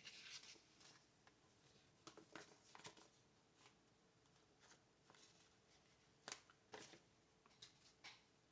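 Near silence with faint, scattered ticks and rustles from handling a paper planner and stickers.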